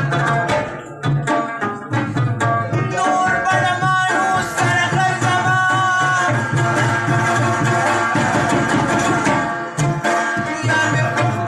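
Live Pashto tappay folk music: tabla drumming with a melody line over it. The drum strokes are dense at the start and again near the end, and long held melodic notes run through the middle.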